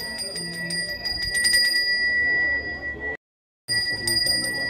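Balinese priest's hand bell (genta) rung continuously: one steady high ringing tone with rapid clapper strikes, about five a second. It cuts out for about half a second near the end, then goes on.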